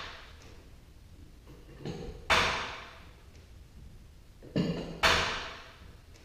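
Two sharp metallic clanks about two and a half seconds apart, each ringing out for about a second, with a lighter click just before each: steel torsion-spring hardware on the door's spring shaft being struck or knocked during spring work.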